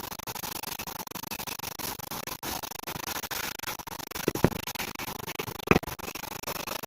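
Steady hiss of water running over engine parts as they are washed, with two short knocks about four and a half and almost six seconds in.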